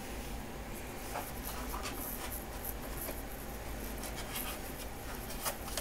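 Faint paper rustling and light scraping from a disc being handled and tucked into its card sleeve, with the sleeve's flap being folded shut.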